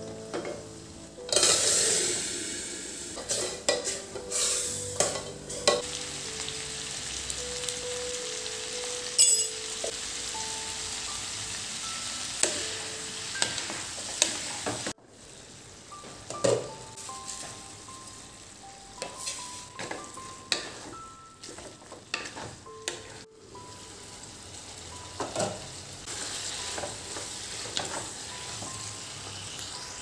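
Hot tempering oil with dried red chillies (tadka) poured from a small pan, hitting with a loud sizzle about a second in that fades over a couple of seconds into a steady frying hiss. Later, a spatula stirs and scrapes diced potatoes frying in a nonstick pan, with light clinks against the pan.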